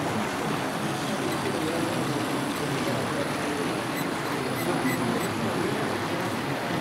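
Steady exhibition-hall background of murmured voices, with model trains running on the layout.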